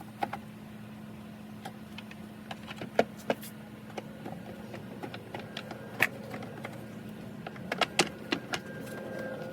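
Irregular plastic clicks and knocks of a Chrysler 300's air filter housing being handled as the new filter is fitted, a few sharper knocks about three, six and eight seconds in, over a steady low hum.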